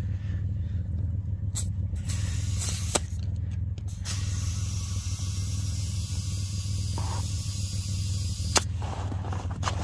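Compressed air hissing into a tire through its valve stem from an air chuck as the tire is inflated: short bursts about two to three seconds in, then a steady hiss from about four seconds in, cut off by a click near the end. A steady low hum runs underneath.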